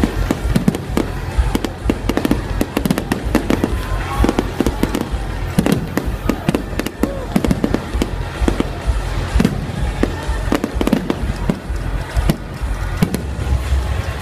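Fireworks display: aerial shells bursting overhead in quick succession, a dense, unbroken run of bangs and crackling over a low rumble.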